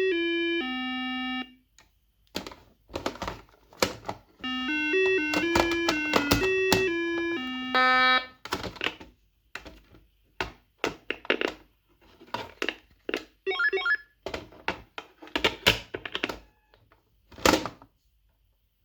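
An apartment intercom handset plays a simple electronic call melody of beeping stepped tones, which ends about a second and a half in. The melody plays once more from about 4.5 to 8 seconds, followed by a long string of sharp clicks and knocks with a brief warbling chirp in the middle.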